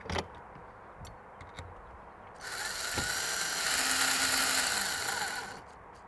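A cordless drill driving a screw, run for about three seconds from near the middle and stopping sharply. A short click comes just before, at the very start.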